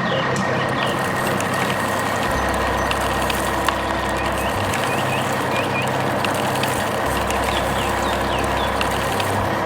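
Heavy vehicle engine sound effect running with a steady hum. A low rumble drops out and comes back every second or two, and small short chirps repeat above it.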